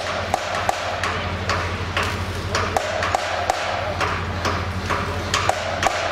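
Electric arc welding buzzing and crackling steadily, with irregular sharp metallic taps of hammering on metal frames.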